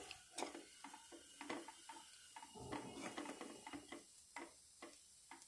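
A spatula stirring cooked beetroot rice in a pan: faint, irregular taps and scrapes as the spatula turns the rice and knocks against the pan.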